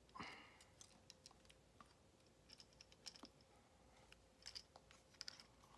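Faint, scattered plastic clicks and taps from a Transformers Studio Series Megatron action figure as its parts and joints are turned and snapped into place by hand, at an uneven pace.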